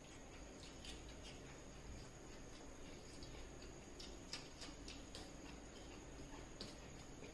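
Faint eating sounds from two people eating rice and curry by hand: scattered small clicks and smacks of chewing and of fingers working the food on steel plates, a little louder about four seconds in.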